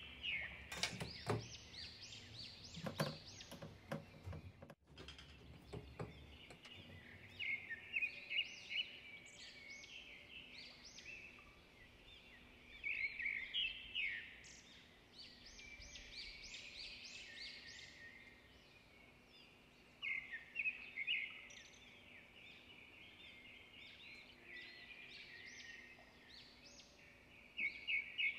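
Small birds chirping in repeated bursts of quick, high chirps, with a few soft knocks in the first several seconds.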